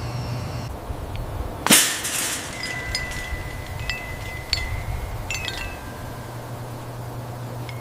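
A single sharp impact about two seconds in, followed by a faint, thin, high metallic ringing with a few light ticks, over a steady low hum.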